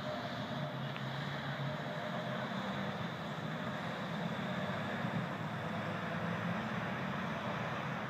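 Steady city street traffic noise, with a low engine hum running underneath.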